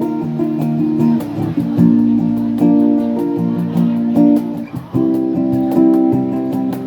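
Busking band playing an instrumental passage of a Cantonese pop song: strummed guitar chords changing about once a second over a steady ticking beat, with no singing.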